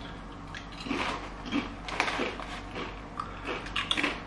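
Crisps being chewed with the mouth closed: irregular short, sharp crackles of crunching.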